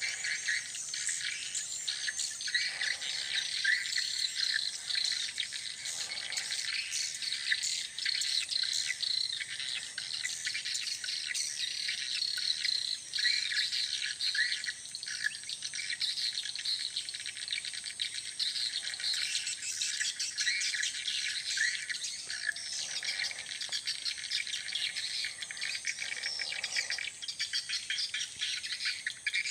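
Dense, continuous high-pitched chirping and twittering of small birds over a steady high insect drone.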